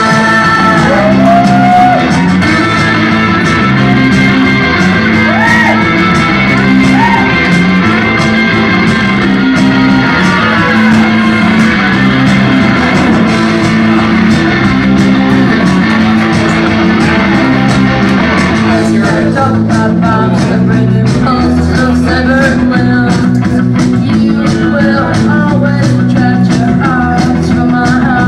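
Punk rock song playing loud, with singing over electric guitar, a steady bass line and drums. The song's top end thins out about two-thirds of the way through as it moves into a new section.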